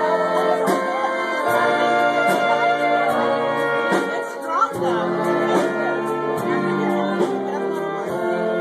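Live German brass band music: accordion, clarinet and brass holding chords and melody over a steady beat, with a rising slide about four seconds in.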